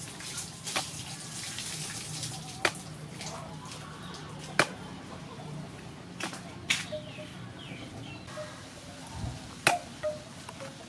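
Sticky minced fish paste being mixed by hand and slapped down onto a metal plate, giving sharp wet slaps a second or two apart.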